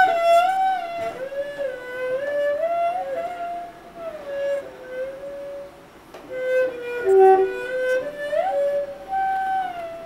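Cello improvising a slow melody of long held notes that slide smoothly from one pitch to the next.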